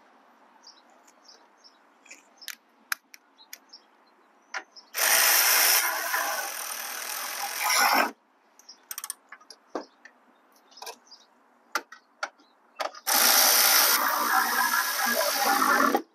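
Cordless electric ratchet with a 12 mm socket on an extension running twice, about three seconds each time, driving bolts down on the ECU bracket. Scattered light clicks come before and between the runs.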